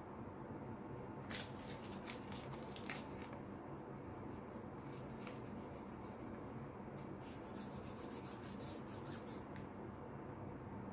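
A small piece of paper card rubbed and scraped across the face of a shellac 78 rpm record. First come a few separate strokes, then a quicker run of strokes from about seven seconds in.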